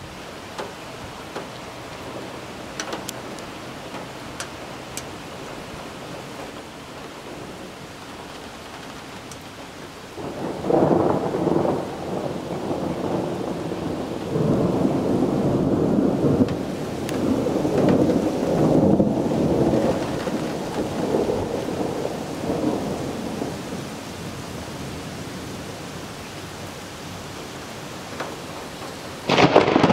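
Steady rain, then about ten seconds in a long rolling rumble of thunder that lasts some fifteen seconds. A sudden, louder crack of thunder breaks in near the end.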